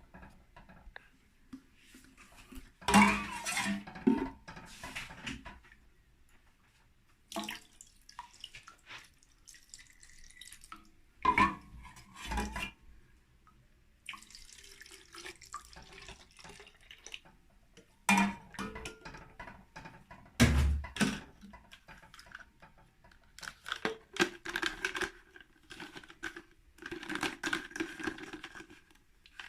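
Homemade disinfectant liquid being poured and its containers handled: water sounds mixed with scattered clinks and knocks of kitchenware, the loudest a few seconds in and again around a third and two thirds of the way through.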